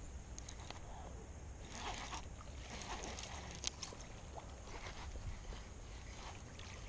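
A small bass splashing at the surface several times as it is reeled in on a fishing line, over a steady wind rumble on the microphone.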